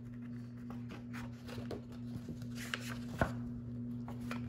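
Pages of a large softcover picture book rustling and crinkling as the cover is opened and a page turned, with one sharper tap about three seconds in. A steady low hum runs underneath.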